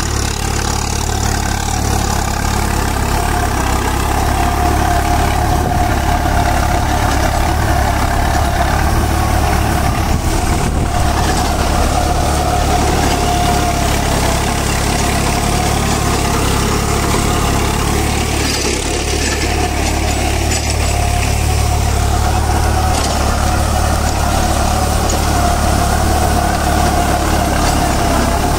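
New Holland tractor's diesel engine running steadily under load, driving a rotavator whose blades are tilling dry stubble. There is a steady whine over the low engine hum.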